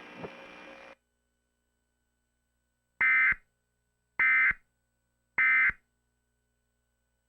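Emergency Alert System SAME data tones sending the End of Message code: three short, high-pitched buzzing bursts about a second apart, the signal that closes an EAS alert. A faint hum cuts off about a second in, before the bursts.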